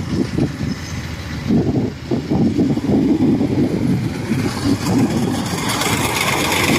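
Crawler rice combine harvester running as it cuts toward and up close, its engine rumbling together with the clatter of its cutting and threshing gear. It grows louder and more rattly from about four seconds in.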